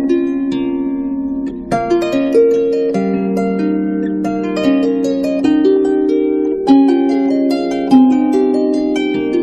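Background instrumental music of plucked string notes, harp-like, each note starting sharply and fading slowly, layered into gentle chords and melody.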